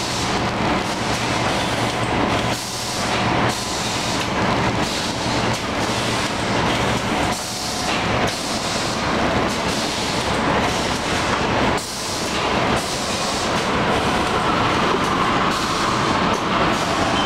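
Automatic side-sealer shrink-wrapping machine running, a steady mechanical din with a low hum. A steady higher whine joins in during the last few seconds.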